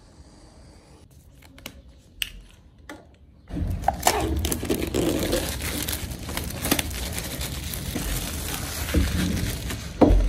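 Plastic shrink wrap being torn and peeled off an iPad's cardboard box, crinkling loudly from about three and a half seconds in. Before that, only a few faint clicks as a small cutter is run along the box's edge to slit the wrap.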